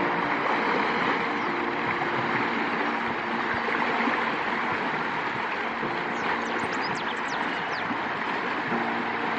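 Flowing canal water rushing and splashing steadily around a man wading and swimming through it, churned up by his body.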